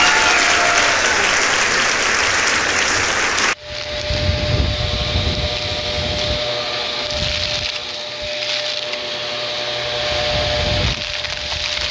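Applause and cheering that cuts off abruptly about three and a half seconds in, followed by a vacuum cleaner running with a steady whine over an uneven low rumble.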